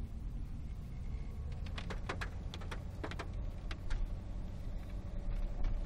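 Steady low rumble of a V8 car's engine and tyres heard from inside the cabin while driving slowly, with a handful of sharp clicks about two to four seconds in.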